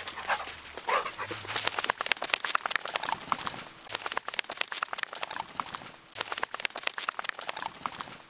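Steps of a dog and a person crunching and clicking over a gravel shore and asphalt, a dense, irregular patter of small impacts. A couple of brief high squeaks sound in the first second.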